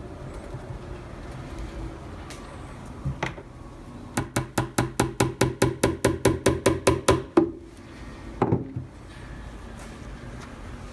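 A hammer tapping a tack through a leather cabinet corner into the Tolex-covered plywood cabinet: a quick run of about eighteen light taps, some five a second, growing louder, tacking the corner in place to mark its holes. One duller knock follows about a second after the run.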